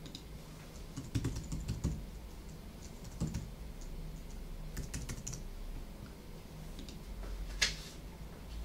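Keys tapped on a computer keyboard: irregular clusters of light clicks with pauses between, and one sharper click near the end.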